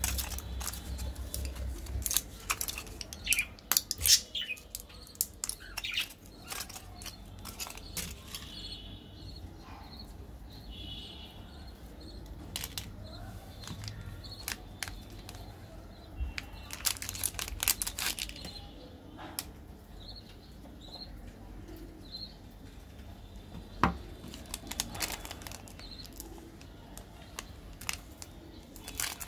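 Clicks and crinkling of a plastic-and-foil blister pack as Gems candies are pressed out through the foil, busiest in the first several seconds, then sporadic crinkles of candy wrappers being handled. A few short high chirps sound in the quieter middle stretch.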